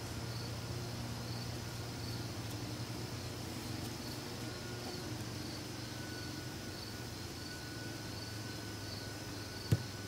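An insect chirping in an even rhythm, a little more than one chirp a second, over a steady low hum. Near the end there is a single sharp knock as the stone block on top of the hive is set on its cover.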